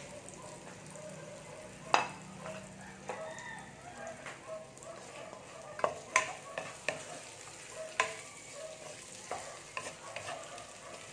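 Onion, garlic, ginger and bell pepper sizzling as they sauté in oil in a non-stick pan, stirred with a wooden spatula that knocks and scrapes against the pan several times, sharpest about two, six and eight seconds in.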